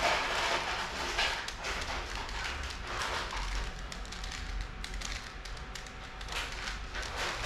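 Plastic layers of a 3×3 Rubik's cube being turned by hand, with a quick, irregular run of clicks and clacks as a short move sequence is repeated.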